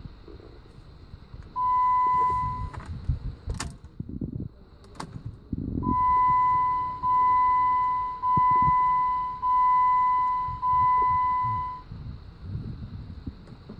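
An electronic warning chime sounding a steady beep at one pitch: one beep of about a second, then after a pause five more back to back, each fading slightly. Two sharp clicks fall in the gap between them.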